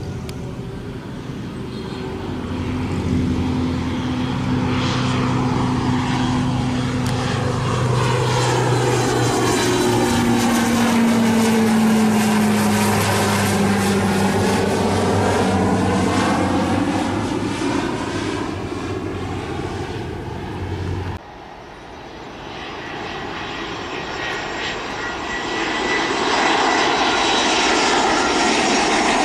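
NC-212-400 twin-turboprop taking off and passing overhead: a steady propeller drone whose pitch drops as it goes by. About two-thirds of the way in, a sudden cut switches to an Airbus A320-200 on final approach, its jet engines' rushing hiss with a thin whine growing louder near the end.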